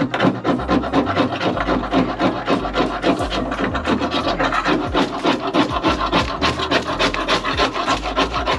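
Hand scraper blade scraping old foam insulation and adhesive off a van's sheet-metal floor in rapid, repeated rasping strokes.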